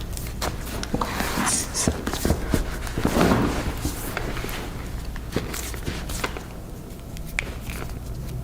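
Hands working a bare foot and toes during a chiropractic adjustment: skin and fabric rubbing with scattered small clicks and taps, one louder scuffing sound about three seconds in, over a steady low hum.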